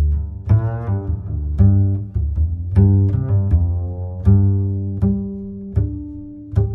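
Background music: low pitched notes, each struck sharply and then dying away, with a new note about once a second.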